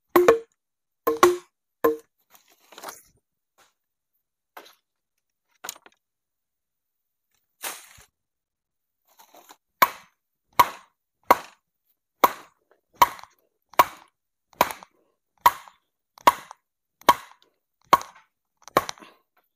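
A tool striking wood: a few scattered sharp knocks, then from about ten seconds in a steady run of about a dozen blows, a little more than one a second.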